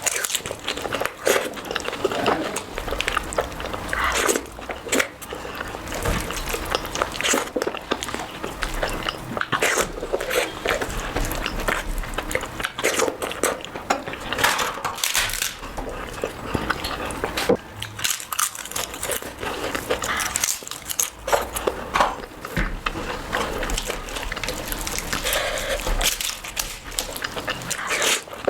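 Close-miked eating sounds: chewing and biting with many irregular mouth clicks and smacks.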